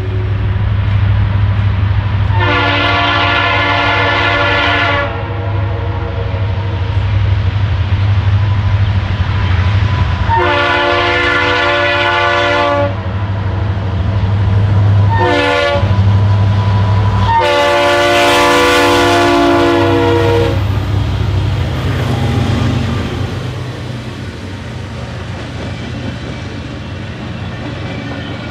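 Diesel locomotive air horn sounding the grade-crossing signal: two long blasts, a short one, then a final long one, each a chord of several tones. A steady low rumble of the passing train runs beneath and eases off near the end.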